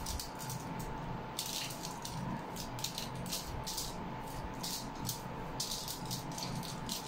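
Fried tuyo (dried salted fish) being broken apart and picked at with fingers: quick, crisp crackles and rustles that come in clusters.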